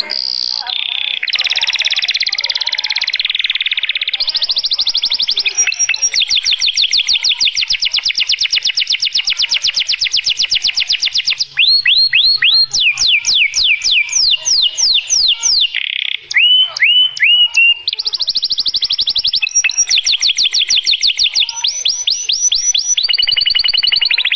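Domestic canary singing one long unbroken song: fast rolling trills and rapid repeated notes, with a run of sweeping up-and-down notes about halfway through before the trills return.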